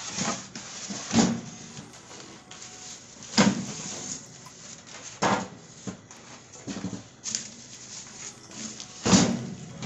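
Styrofoam packing end caps being pulled off a plastic-wrapped electric oven and set down: about five sharp knocks, over a rustle of plastic wrap.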